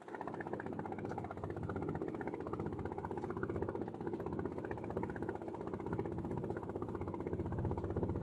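A fishing boat's engine running steadily, with a fast, even beat.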